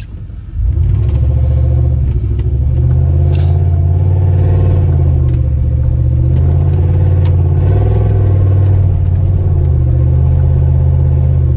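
Dodge Durango engine running under throttle through a muffler-deleted exhaust, with only a gutted catalytic converter left: a loud, deep exhaust drone that comes in suddenly about half a second in and holds steady, wavering a little in pitch.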